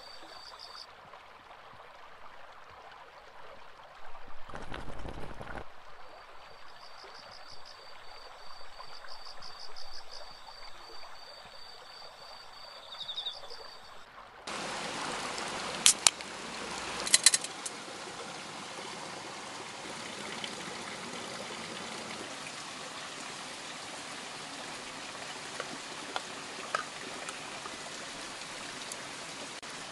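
Insects chirping in a fast, high, even rhythm; then, after an abrupt change about halfway through, a mountain stream running steadily, with a couple of sharp clicks shortly after it begins.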